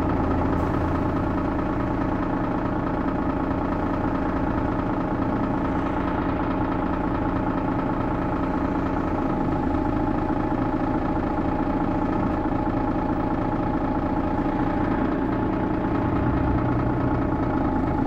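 Diesel engine of a Mercedes-Benz O530G Citaro articulated city bus running steadily at an even speed, with no revving.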